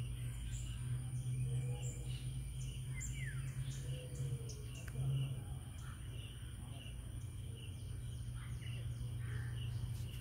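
Riverside ambience: birds chirping and calling, one with a falling note about three seconds in, and insects keeping up a high rhythmic chirring, all over a steady low hum.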